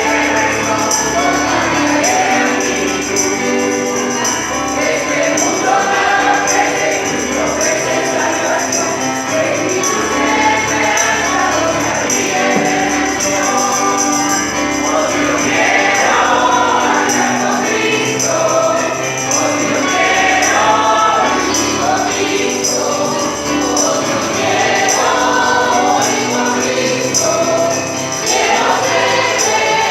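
A group of voices singing a Christian hymn, accompanied by a steadily shaken tambourine.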